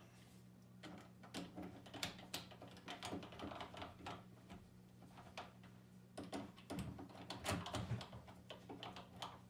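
A hand screwdriver snugging up the mounting screws of a dead latch lock: an irregular run of small clicks and scrapes of metal on metal.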